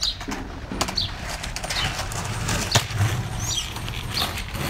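Skateboard wheels rolling over rough paving, with several sharp knocks from the board, the loudest a bit under three seconds in.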